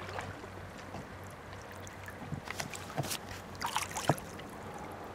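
Small boat moving over calm lake water: water trickling and lapping at the hull, with a run of small splashes and knocks about halfway through.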